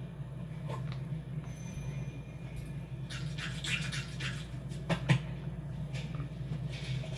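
Steady low hum with a few soft clicks, about a second in and again around five seconds, and light rustling in between.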